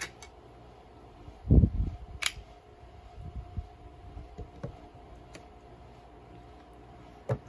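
A double-sided diamond bench stone in its base being turned over to the fine side and set down on a wooden work table: a dull thump about a second and a half in, then a sharp click, a few light knocks as it is settled, and another short click near the end.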